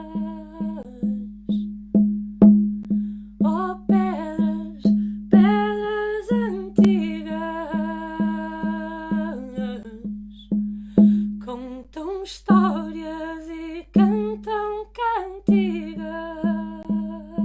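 A woman's voice singing a wordless, humming melody in long phrases over a steady low pulse, about two beats a second, from a plucked or drummed accompaniment.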